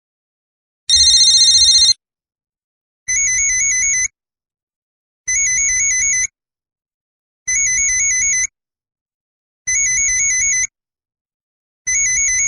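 Electronic telephone ringer trilling in about-one-second bursts that repeat roughly every two seconds, each burst a rapid warble between high tones. It starts about a second in with one louder, brighter burst before settling into the regular ring pattern.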